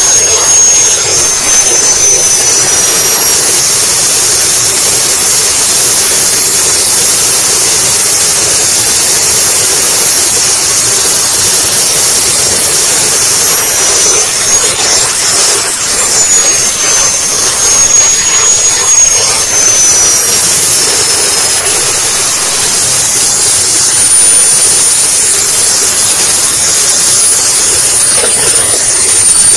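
Small model jet turbine engine heard up close from on board the RC jet, a loud rushing with a high whine. The whine drops at first, climbs once about halfway through as the throttle is opened, then sinks again as the jet is throttled back and comes in to land.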